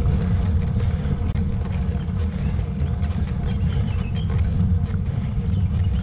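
Steady low rumble of wind buffeting a moving camera's microphone during a bicycle ride uphill, with road noise under it. Faint high chirps come and go above the rumble.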